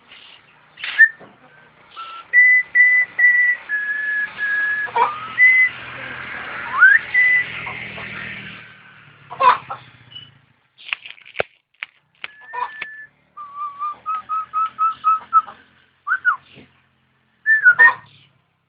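A jalak (starling) singing a varied song: clear whistled notes held steady, an upward-sliding whistle, a quick run of about eight short repeated whistles in the second half, broken by harsh rasping calls and clicks.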